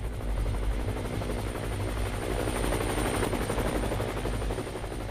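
Helicopter flying overhead: a steady, fast rotor beat over a deep rumble.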